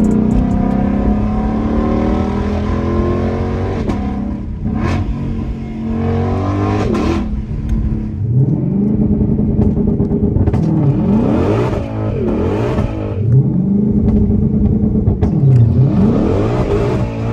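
Shelby GT500's supercharged 5.2-litre V8 accelerating hard. Its revs climb and drop back sharply again and again as it pulls up through the gears.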